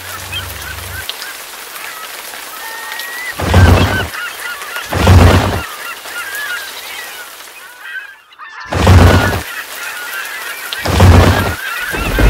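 Four heavy cannon booms in two pairs, the shots of each pair about one and a half to two seconds apart, over birds calling throughout.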